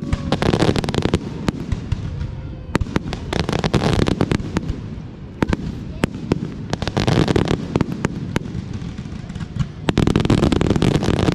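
Fireworks going off: many sharp bangs and dense crackling bursts that come in several waves about three seconds apart.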